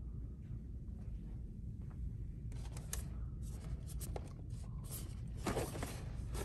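Plastic blister-pack action figure packages rustling and crinkling as they are handled and flipped through on pegboard hooks, starting about two and a half seconds in, over a steady low store hum.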